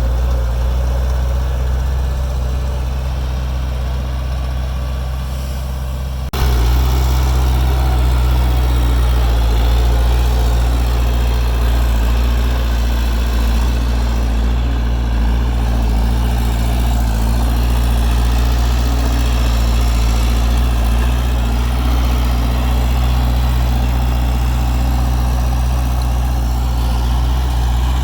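Heavy construction machinery's diesel engine running steadily with a low drone. About six seconds in the sound jumps abruptly louder.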